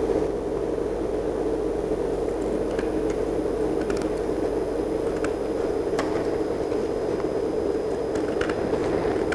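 Scissors cutting through a sheet of paper in a few faint snips over a steady background hum.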